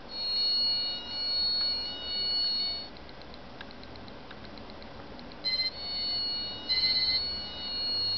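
Small piezo buzzer sounding the pulse-width modulation of a colour-changing RGB LED's built-in microcontroller: a high, shrill whine that swells and fades three times as the LED fades between colours. It then drops to a faint whine with a few ticks for about two and a half seconds, and comes back near the end, partly in abrupt on-off blocks.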